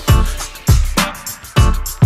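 Background music: a song with a strong, steady drum beat, about two beats a second.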